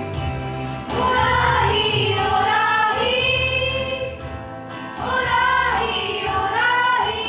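Children's choir singing a slow song in unison with long held notes, over a steady low instrumental accompaniment. New sung phrases begin about a second in and again about five seconds in.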